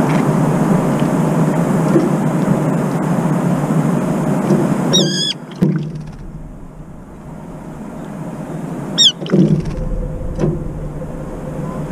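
Brown-eared bulbul giving a shrill, drawn-out 'piiiik' squeal twice, about halfway through and again some four seconds later, as it bathes in a cup of cold water. There is a brief flutter or splash just after the second call, and a steady low rumble of distant traffic under the first half.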